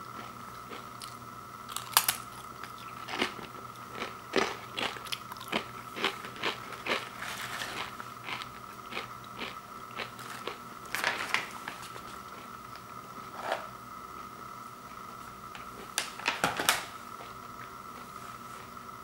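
Crunchy Late July Bacon Habanero tortilla chips being bitten and chewed, a long run of sharp crunches with a louder cluster near the end.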